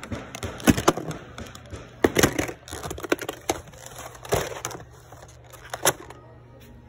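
Irregular knocks and rattles of boxed power tools and plastic-cased tool packaging being handled in a shopping cart, about half a dozen sharp hits, the loudest about two seconds in.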